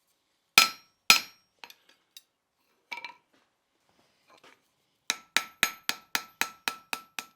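Hand hammer striking steel on an anvil: two hard blows about half a second apart, a few light taps, then from about five seconds in a quick, even run of blows, roughly four a second, with the anvil ringing under them.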